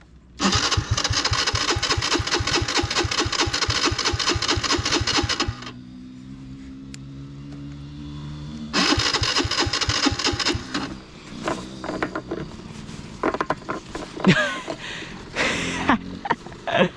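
A small off-road engine is cranked for about five seconds, then catches and idles, its pitch sagging a little as it settles. About three seconds later it gives another loud burst, and scattered knocks and clatter follow.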